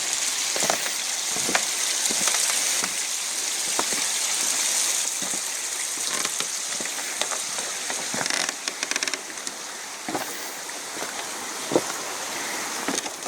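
A hiker's footsteps crunching along a railway grade, about one step a second, over a steady high hiss that drops away about eight and a half seconds in.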